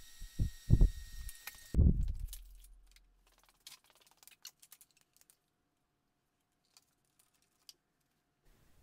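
A quick run of low thuds over a faint steady whine, then, from about two seconds in, only faint scattered clicks and taps.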